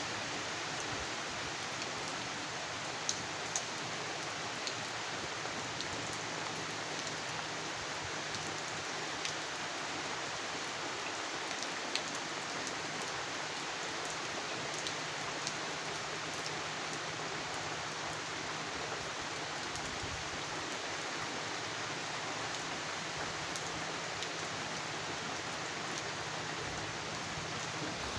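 Steady, even hiss of monsoon rain, with a few sharp drip ticks scattered through it.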